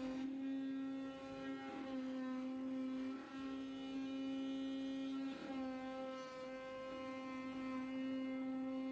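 CNC oscillating-knife cutting machine running as it cuts carpet car mats: a steady, even-pitched machine hum with a string of overtones, wavering briefly a few times.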